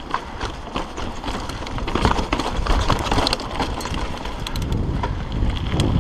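Hardtail mountain bike riding fast downhill over rocky dirt and gravel: tyres crunching, with many quick clatters and knocks from the bike over bumps, and wind rumble on the handlebar-mounted camera's microphone.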